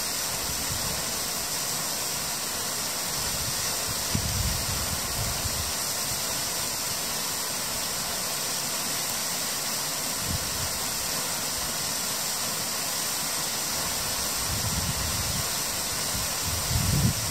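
Steady rushing of flowing water, with a few brief low rumbles.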